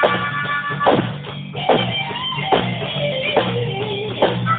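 Live rock band playing: guitar and drum kit, with a steady drum beat under a wandering melody line.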